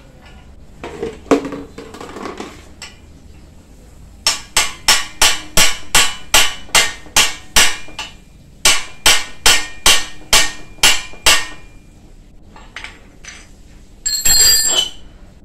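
Hammer beating on metal tools against a rusted bicycle crankset to knock it loose: two quick runs of sharp metallic blows, about three a second, with a short pause between, then a brief clatter near the end. The part is stuck hard with rust.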